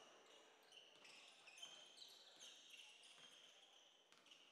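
Faint basketball dribbling on a hardwood gym floor, with many short high-pitched sneaker squeaks as players run and cut.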